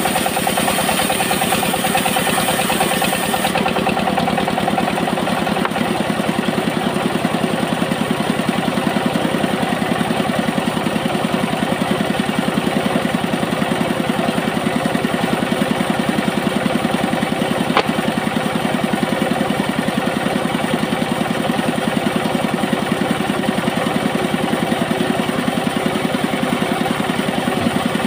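Engine-driven bandsaw sawmill running steadily. For the first few seconds the blade cuts through a coconut-wood board with a high hiss, which stops about three and a half seconds in as the cut ends; the engine and band then run on without load, with one sharp click a little past halfway.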